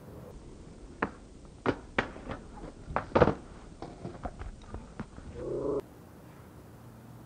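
Skateboard on concrete: a string of sharp clacks and knocks as the board is popped and slaps down during bailed flatground tricks, the loudest about three seconds in. Near the end comes a short vocal cry.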